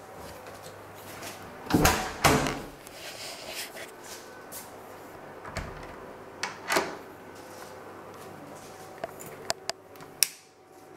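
Room door and its lever-handle latch being worked: two loud knocks about two seconds in, two softer ones past the middle, and a few sharp latch clicks near the end.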